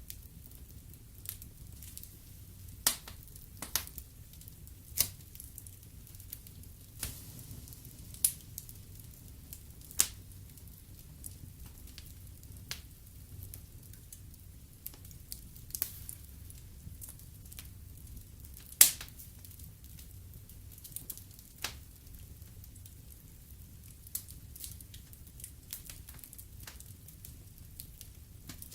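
Wood fire burning in a fireplace, crackling with irregular sharp pops over a low steady rumble; the loudest pop comes about two-thirds of the way through.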